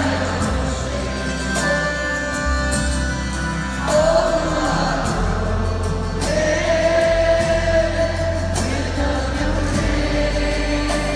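A Christian band playing live in an arena, with several voices singing together over guitar, banjo, bass and a cajon, heard from the audience.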